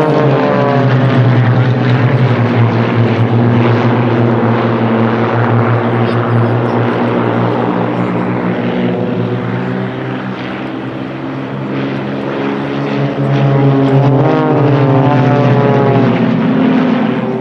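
A formation of single-engine propeller aerobatic planes flying a display, their engines droning together. The engine pitch slides as they pass, with the sound swelling again from about 14 seconds in.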